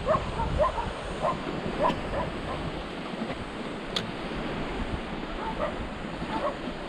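Short, repeated yips or calls from an animal, in two clusters near the start and near the end, over steady wind and surf noise. A single sharp click comes about four seconds in.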